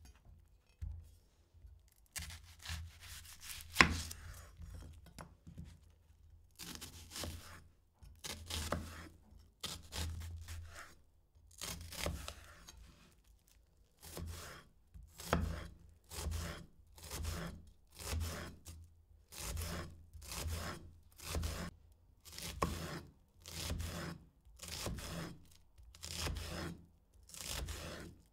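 A vegetable being worked by hand with a blade: separate long strokes, irregular at first and settling to about one a second in the second half, with one sharp knock about four seconds in.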